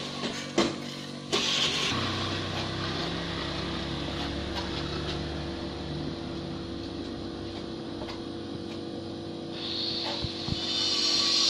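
Engine of a passing motor vehicle running steadily for several seconds, then fading away. Two sharp knocks come just before it, and a hiss rises near the end.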